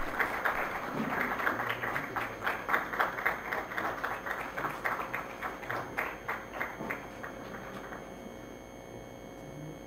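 Audience applauding, many hands clapping together, thinning out and stopping about eight seconds in.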